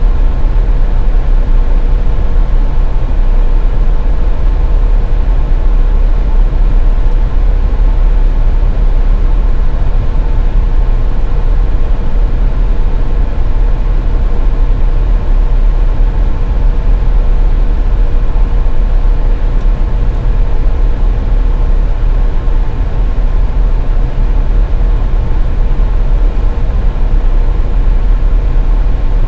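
Car driving at highway speed on a snow-covered road: a steady, loud, low road-and-engine rumble with a faint constant hum above it.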